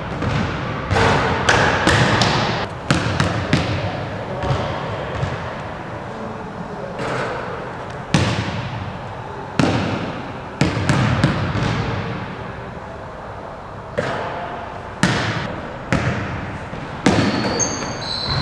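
Basketball thudding on a hardwood gym floor, a dozen or so sharp bounces at irregular intervals, each echoing in the large hall. A couple of short, high sneaker squeaks come near the end.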